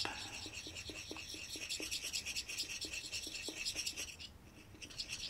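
Thin stirrer scraping around the inside of a small metal cup while mixing two-part epoxy: quick, repeated scratchy strokes, with a short pause about four seconds in before the stirring resumes.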